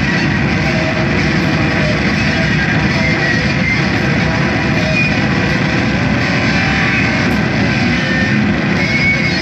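Noise music played loud through guitar amplifiers: a steady, dense wall of distorted, amplified sound with no clear beat.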